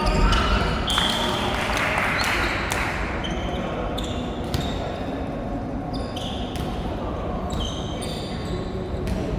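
Indoor court play: shoe soles squeaking briefly and often on the floor, with ball thuds in a large, echoing hall and a murmur of voices.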